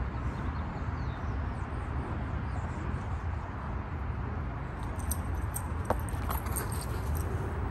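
Steady low rumble, like wind on the microphone, with a run of light metallic jingling and clicks starting about five seconds in.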